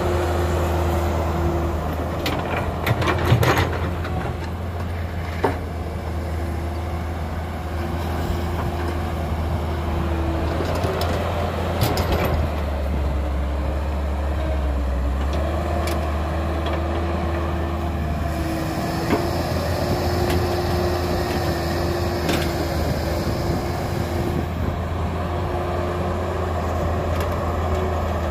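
Caterpillar excavator's diesel engine running as the machine digs soil, with a steady whine that dips in pitch now and then. Scattered knocks and clanks come from the bucket working the ground.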